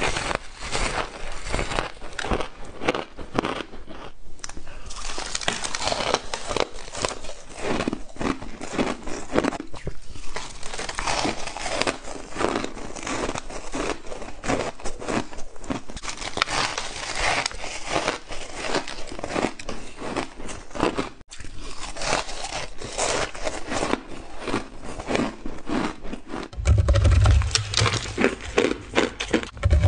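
Close-up crunching of ice being bitten and chewed: a dense run of sharp, crackling crunches, one bite after another. A steady low hum joins near the end.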